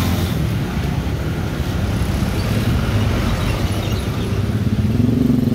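Road traffic passing close by: motorcycles and cars with engines running, a steady rumble that grows louder near the end as a vehicle passes close.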